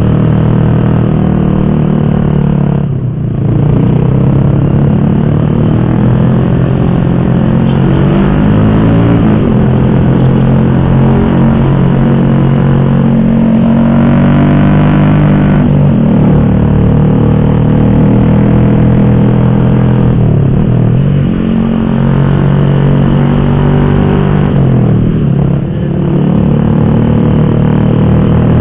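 Motorcycle engine running while riding, its revs rising and falling with the throttle. The revs drop off briefly about three seconds in and twice near the end.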